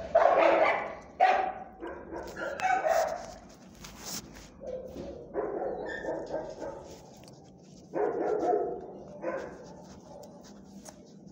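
A dog barking repeatedly in short calls of under a second each, loudest at the start and fading toward the end.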